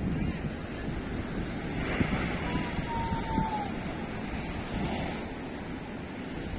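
Ocean surf breaking and washing over rock ledges, swelling in surges, with wind buffeting the microphone. A single short tone, falling slightly, sounds about halfway through.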